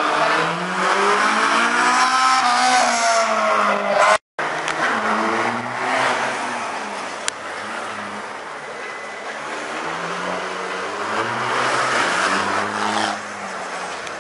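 Rally car engines revving hard through a tight corner, their pitch climbing and falling again and again as the drivers work the throttle. The sound drops out briefly about four seconds in, then another car's engine rises and fades.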